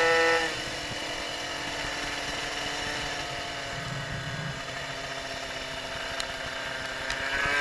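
Tuned two-stroke engine of an MBK 51 moped with a Doppler ER1 kit, under way: its revs drop sharply about half a second in and it runs lower and quieter, then the note climbs back up in pitch near the end as it revs again.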